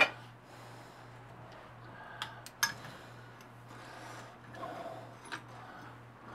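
Light metallic clicks and taps as parts and tools are handled on a drill press table: a sharp clack at the start, two quick clicks about two seconds in and another near five seconds, over a low steady hum.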